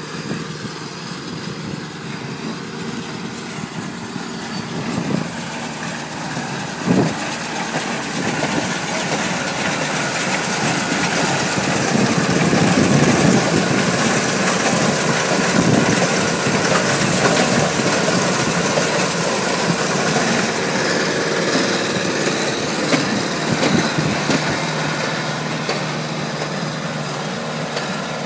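Tractor engine and Hesston small square baler running steadily while baling oat hay, with a sharp knock about seven seconds in. Loudest midway, when the baler's pickup is closest.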